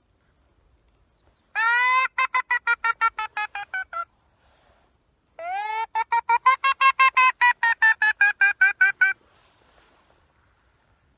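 Mouth-blown reed duck call, blown twice: each time a drawn-out opening quack and then a fast run of short quacks, about six a second, falling in pitch, the hail-call pattern used to turn passing ducks toward the decoys.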